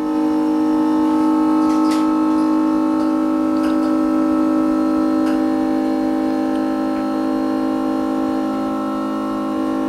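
Background music: a held, organ-like synthesizer chord that swells slightly at the start and stays steady, with no beat.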